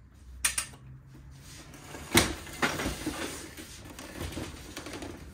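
Hard plastic clack of an HP Color Laser MFP 178nw's hinged scanner unit being moved and brought down, with one sharp knock about two seconds in and a few lighter knocks. Handling and rubbing of the plastic housing follows.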